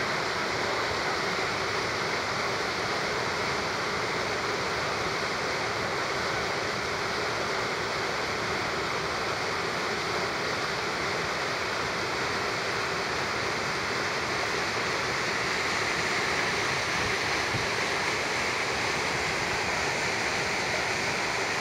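River whitewater rushing steadily through rapids and a small fall, an even, unbroken rush of water.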